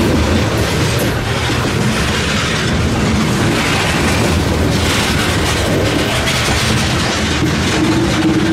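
Loaded covered hopper cars of a slow freight grain train rolling past close by, their steel wheels rumbling and clattering on the rails.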